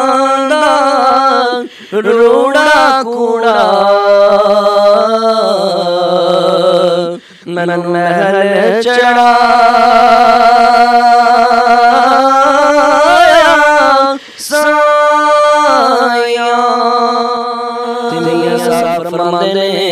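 A man singing Punjabi Sufi kalam unaccompanied, in long drawn-out notes with wavering ornaments and glides. He breaks off briefly for breath about two, seven and fourteen seconds in.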